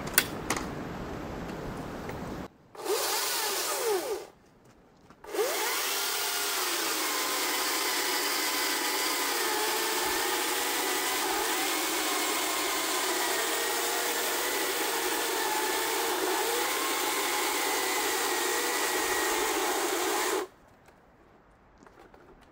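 Greenworks Commercial OCS800 battery chainsaw, fitted with a 36-inch bar and .404 chain, spins up briefly about three seconds in and stops. It then starts again and runs steadily under load for about fifteen seconds as it cuts into a large log, its whine wavering with the load, and cuts off suddenly near the end.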